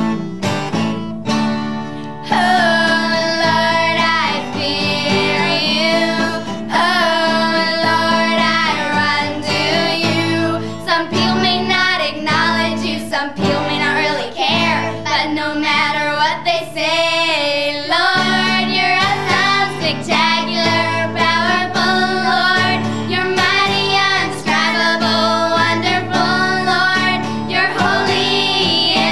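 Acoustic guitar strummed, joined about two seconds in by a group of young girls singing a song together over it.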